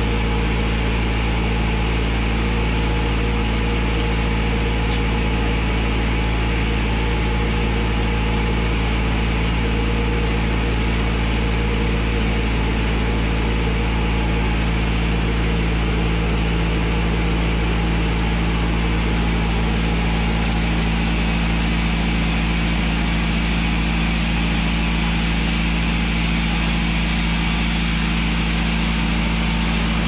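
Sawmill machinery running in a steady drone, the engine or motor holding an even pitch and level with no let-up or change.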